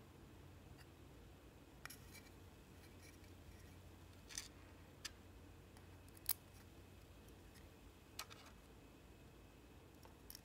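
A handful of light, sharp clicks and taps as small printed circuit boards and brass standoffs of a Proxmark3 Easy are handled and fitted together, the loudest about six seconds in, over a faint low hum.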